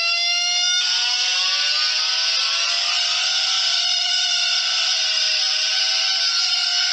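Emergency alert alarm tone: a loud, sustained electronic tone sounding several pitches at once that waver slowly, with a harsh hiss joining it about a second in.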